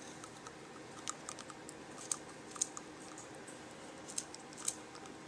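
Sparse, irregular light clicks and taps of an African grey parrot's beak nibbling at a small hard object held up to it.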